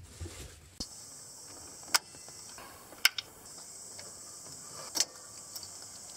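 Switches clicking as a converted electric Suzuki Jimny is powered up. A click about a second in brings on a steady high-pitched electrical whine, and three sharp clicks follow over the next few seconds.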